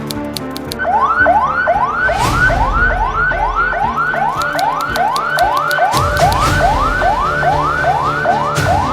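Electronic siren in a fast yelp: the same rising wail repeated about two and a half times a second, starting about a second in.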